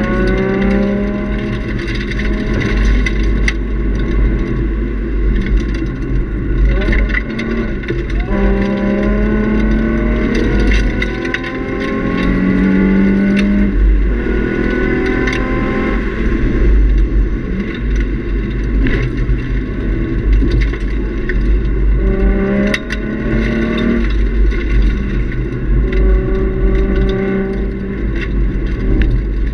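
2003 Nissan 350Z's 3.5-litre V6 through a Nismo cat-back exhaust, driven hard on track. The engine note climbs in pitch again and again and drops back at each gear change, over heavy road and wind rumble heard from inside the cabin.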